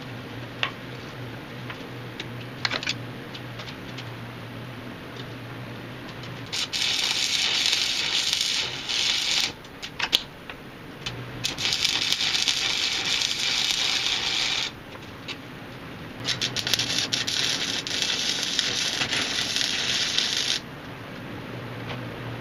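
Arc welding flat steel pieces: three runs of steady crackling, each three to four seconds long, with a low steady hum and a few small clicks in the pauses between them.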